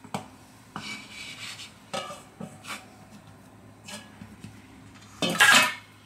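Stainless steel mixing bowl knocking a few times as risen dough is tipped out of it onto a wooden cutting board. A louder metal clatter near the end as the bowl is set down.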